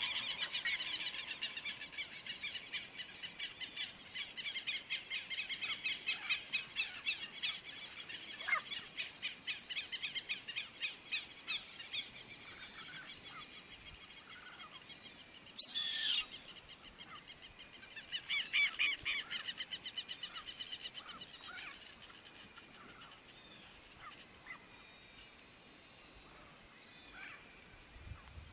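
Birds calling in a field, a busy run of rapid high chirping notes that fades after about twelve seconds. A single brief, loud burst comes a little past halfway, followed by a shorter run of chirps, then only faint scattered calls.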